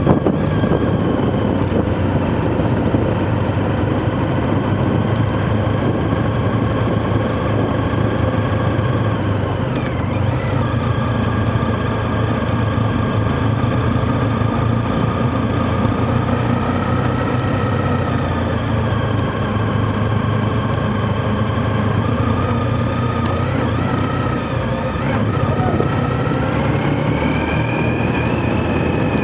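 Motorcycle engine running at low road speed, its pitch rising and falling with the throttle several times and climbing near the end, over a steady low drone.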